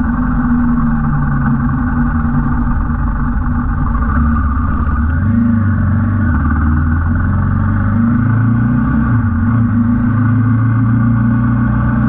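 Royal Enfield Himalayan 450's single-cylinder engine running steadily while the motorcycle is ridden along.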